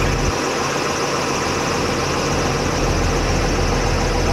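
Heavy diesel engine of construction machinery running steadily, its low rumble growing stronger a little past halfway.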